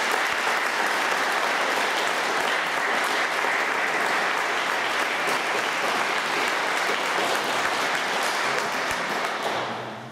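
Audience applauding steadily, dense and even, fading out near the end.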